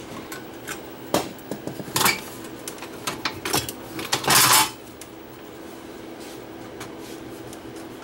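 Sheet-metal top cover of a Sony CV2000 reel-to-reel video recorder being handled and lifted off: a few separate metal clinks, then a louder half-second metal scrape and rattle about four seconds in. Afterwards only a low steady hum remains.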